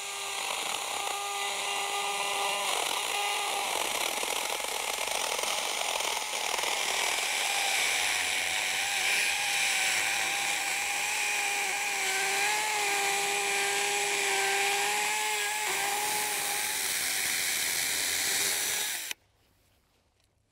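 Battery-powered chainsaw, fed from a backpack battery, running steadily as it rips lengthwise through an old grapevine's trunk and arms. Its whine wavers in pitch as the chain bites into the wood, and it cuts off abruptly about a second before the end.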